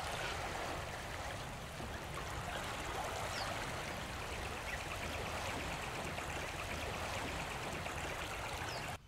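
Steady rushing, water-like outdoor ambience with no single clear source. A rapid chirring trill joins it about four seconds in for a couple of seconds, and the ambience cuts off suddenly near the end.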